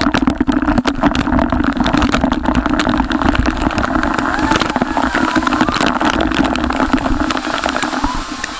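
A vehicle engine running steadily, with a constant low hum and many short crackles over it.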